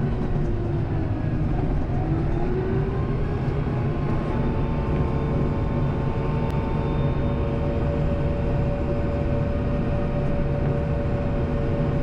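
Kubota M7060 tractor's four-cylinder turbo diesel running steadily under way, with a steady whine that rises slightly in pitch in the first few seconds and then holds.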